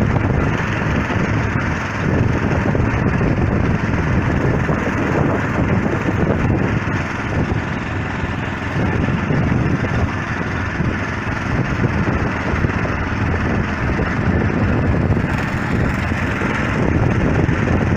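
Wind buffeting the microphone: a loud, rough rumble that swells and eases without a break.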